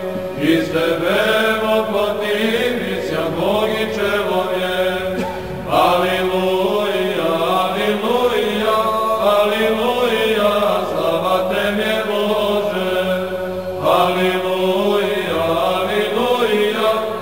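Orthodox liturgical chant: voices singing a slow, drawn-out melody in long held phrases. New phrases begin about half a second in, near six seconds and near fourteen seconds.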